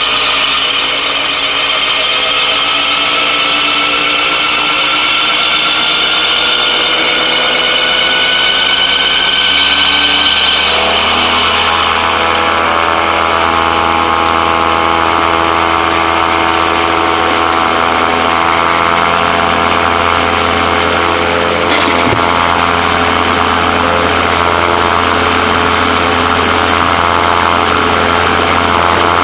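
Gyroplane engine and pusher propeller, the pitch slowly rising for about the first ten seconds. It then changes to a steady, deeper full-power drone as the gyroplane makes its takeoff roll down the grass strip.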